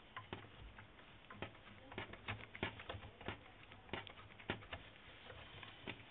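Faint, irregular clicks and ticks of a hex driver turning out the screw that holds an RC buggy's steering knuckle to its suspension arm.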